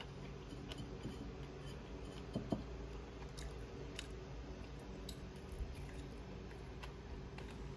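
Faint chewing of a sugar-dipped sticky-rice zongzi: scattered soft clicks and crunches over a low steady hum.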